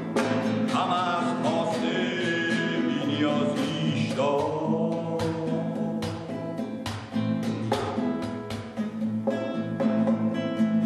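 Acoustic guitar strummed in chords while a man sings long, wavering held notes over it.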